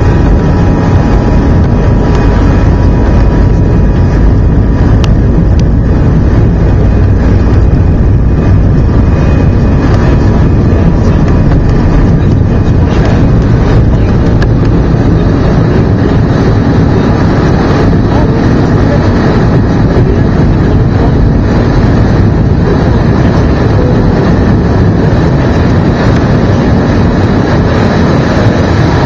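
Steady engine and airflow noise heard inside the passenger cabin of an Airbus A319 in flight, a loud even rumble heaviest in the low end.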